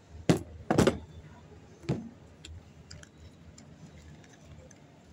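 Metal parts and tools knocking down onto a plastic tabletop: three sharp clacks in the first two seconds, the second doubled and the loudest. Faint handling ticks follow.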